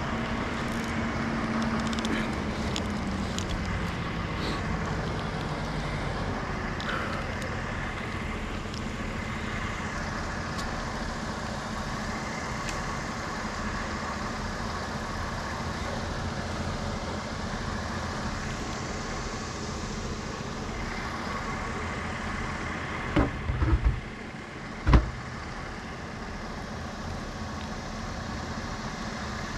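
An engine running steadily at an even speed, its pitch dipping slightly a few seconds in. Two sharp knocks come near the end, a couple of seconds apart.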